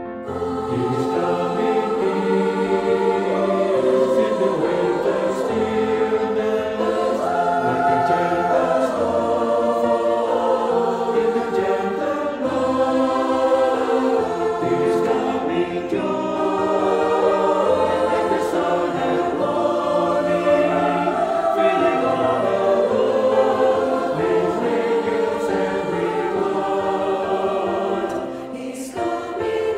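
Church choir singing a slow piece in several parts, with a short break between phrases near the end.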